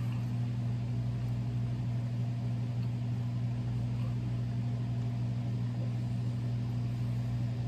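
A steady, low electrical hum with a faint hiss, from a running appliance or machine in the room.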